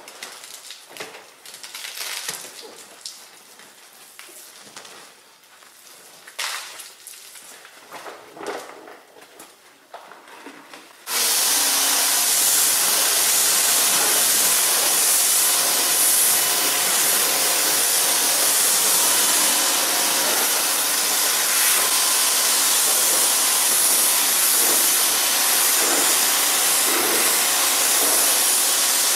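Soft, uneven swishing of a wash mitt over foamy car paint; about eleven seconds in, a pressure washer starts abruptly and sprays a loud, steady hiss of water against the car's body panels.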